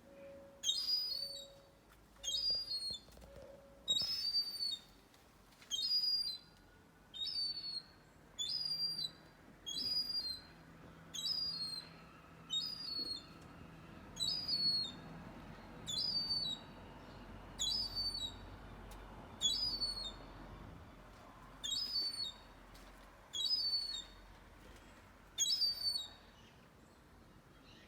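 A bird calling over and over: a short, high call with a falling note, repeated about every second and a half, stopping about two seconds before the end.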